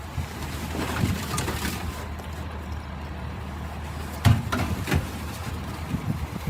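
A heavy vehicle engine running steadily, with sharp knocks about a second in and twice more between four and five seconds in.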